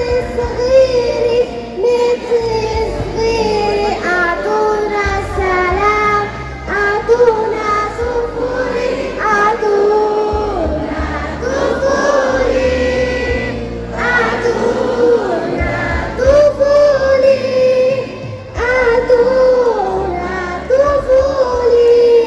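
A young girl singing a song in Arabic, holding and bending long notes, over a musical accompaniment.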